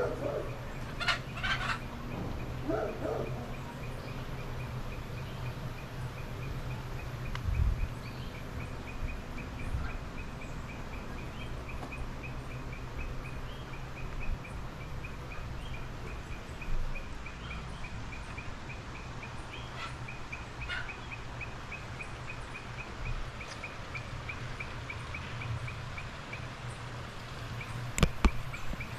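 Chickens clucking and calling from a coop, mostly in the first few seconds, over a steady high-pitched ticking chirp repeated several times a second.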